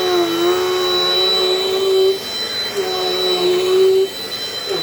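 Dirt Devil Dynamite Plus upright vacuum cleaner running, a steady motor hum and whine. Its pitch dips and recovers a few times, with brief drops around two and four and a half seconds in.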